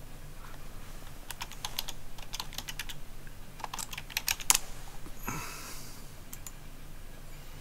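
Typing on a computer keyboard: two quick runs of keystrokes, the second ending in a sharper, louder key press.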